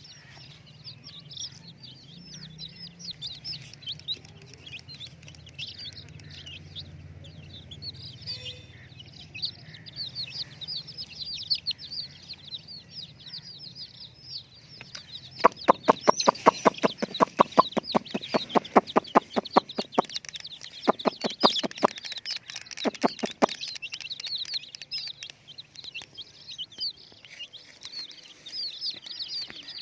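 Many young chicks peeping continuously in high, rapid chirps. About halfway through, a loud rapid run of pulses comes in, roughly five a second, for several seconds before breaking off.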